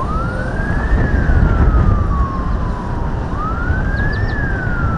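Motorcade escort siren wailing. Each cycle rises quickly and falls slowly, about three seconds long, over a low rumble of passing vehicles.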